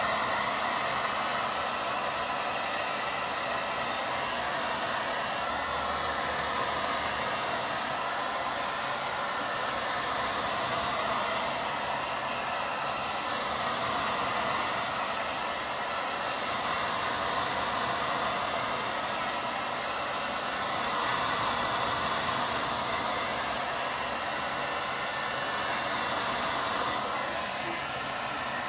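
Handheld hair dryer blowing steadily, its rushing airflow swelling and easing a little every few seconds as it is moved about over a wet painting to dry the paint.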